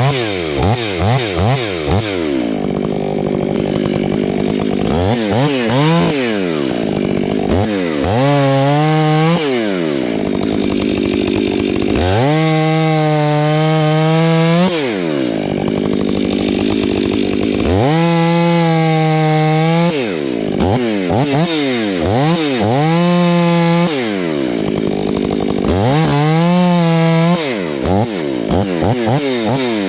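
Stihl 500i fuel-injected two-stroke chainsaw with an 8-pin sprocket, cutting firewood. The engine is revved up and down repeatedly and held at full throttle for a few seconds at a time through several cuts.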